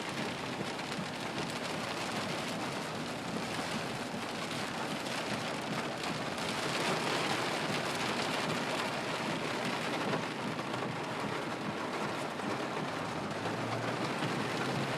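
Heavy rain pouring down in a steady hiss, getting a little louder about halfway through.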